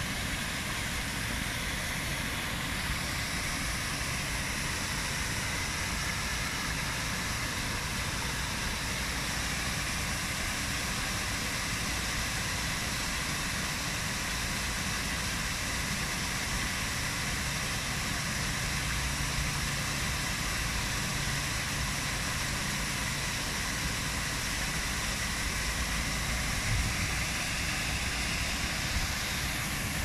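Small waterfalls and cascades splashing over rocks into a pool: a steady rush of falling water.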